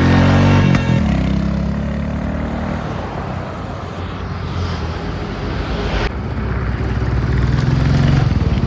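Motorcycle engine running and pulling away, rising in pitch as it speeds up near the start and again near the end, with a steadier stretch between.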